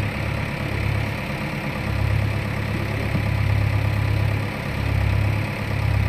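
JCB 3DX backhoe loader's diesel engine running as the backhoe arm lifts a palm tree off a truck, its note swelling and easing for a second or so at a time.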